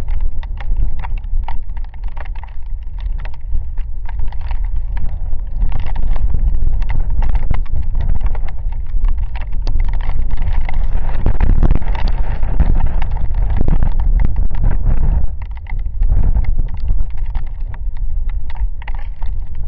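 Storm wind buffeting the microphone with a deep rumble, and raindrops tapping close on the camera and on leaves as rain falls. The gusts are stronger through the middle and ease about three-quarters of the way through.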